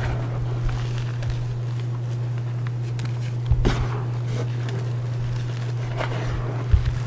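Hands crushing and pressing reformed gym chalk into loose chalk powder: a few crunches, the strongest about three and a half seconds in and two smaller ones near the end, over a steady low hum.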